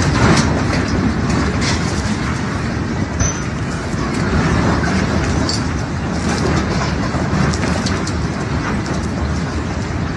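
A loud, steady low rumble of noise with a few faint crackles, picked up by a phone microphone.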